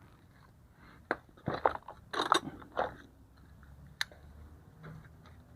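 Short crunching scrapes and clicks of metal drum-brake hardware on a Jeep Wrangler TJ rear brake being worked by hand to get the brake shoes out. There is a cluster of them between one and three seconds in, then a single sharp click about four seconds in.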